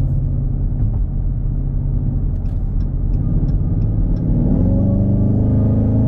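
Dodge Charger Hellcat's supercharged 6.2-litre HEMI V8, breathing through a JLT cold air intake, heard from inside the cabin. It drones steadily while cruising; about four seconds in the engine note rises as the car accelerates, then holds at a higher pitch.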